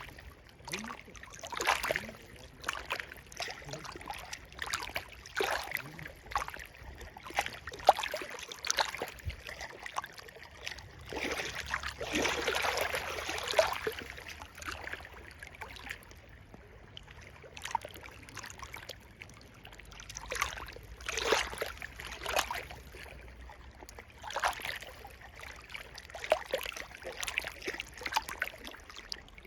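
River water flowing and gurgling, with short irregular splashes throughout and a louder rush of water about twelve seconds in.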